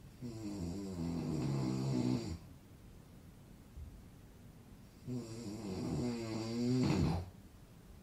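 A man snoring: two long snores about three seconds apart, each a rattling, pitched snore of about two seconds that cuts off sharply.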